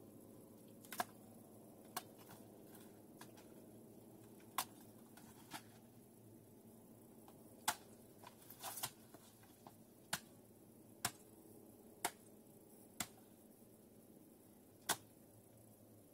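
A series of sharp clicks or snaps, roughly one a second, with a quick cluster of several just after the middle, over a faint steady hum.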